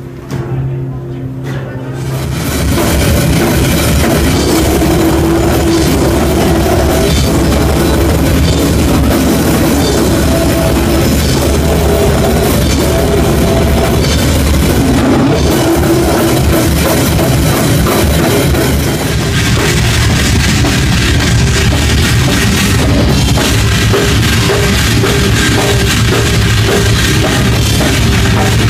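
Live death metal band playing loudly with drum kit and cymbals. It kicks in at full volume about two seconds in, after a held low note.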